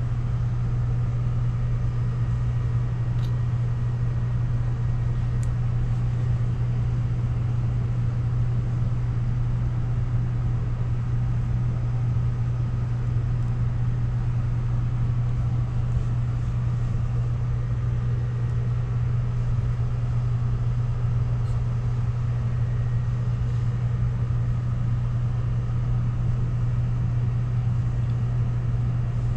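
A steady low mechanical hum with a rumble underneath, unchanging in pitch and level, with now and then a faint tick.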